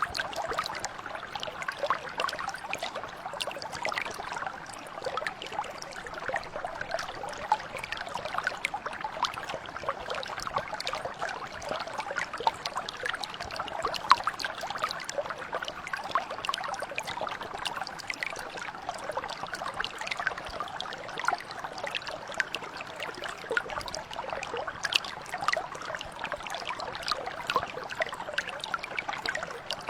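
A mountain brook flowing steadily, with a dense, continuous trickle of small splashes.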